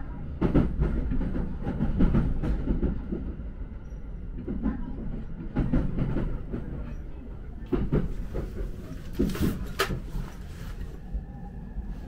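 Electric commuter train on the Tokaido Line rolling over rail joints and points: a steady low rumble with irregular wheel knocks and clatter, a cluster of louder knocks about eight to ten seconds in.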